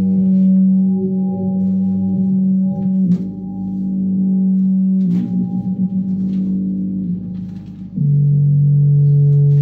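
A sustained droning tone with overtones, as in an experimental music performance. It wavers a couple of times, with a few light clicks, and steps down to a lower pitch about eight seconds in.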